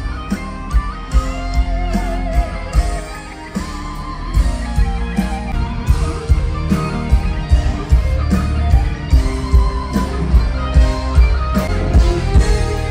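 Live rock band playing an instrumental passage: an electric guitar lead with wavering, bent notes over drums and bass, the drum beats growing denser in the second half.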